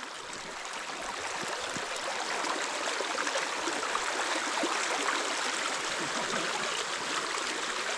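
Creek water running steadily, an even rush of flowing water that grows a little louder over the first few seconds.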